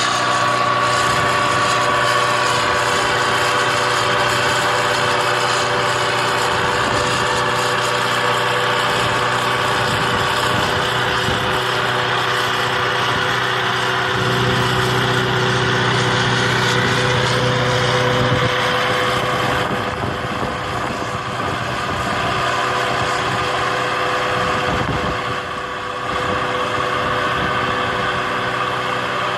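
Ford 276 tractor's engine running steadily, a little quieter from about two-thirds of the way through.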